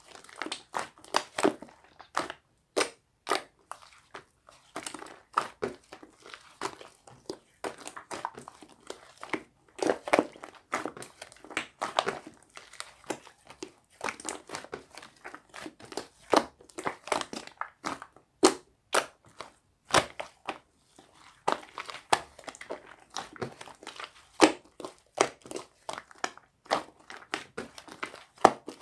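Slime being squeezed and pressed by hand, making dense, irregular sharp pops and clicks.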